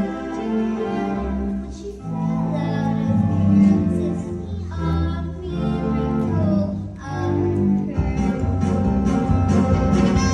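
Orchestral music with bowed strings playing sustained chords that shift every second or two.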